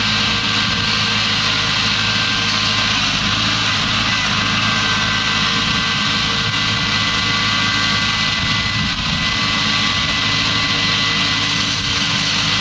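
Compact tractor engine running steadily while it powers a hydraulic disc pre-pruner (hedger) working along a citrus row. A steady high whine sits over the engine.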